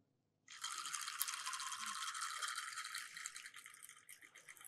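Fishing reel being wound in, a steady, fast rattling whirr of the reel turning, as line with a heavy weight on it is retrieved. It starts about half a second in and fades near the end.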